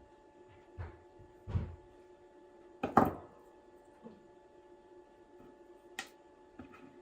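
A few light knocks and clicks from handling small metal lighter parts and tools at a workbench while nichrome heating wire is wound onto the element, the loudest knock about halfway through and a sharper click later, over a faint steady hum.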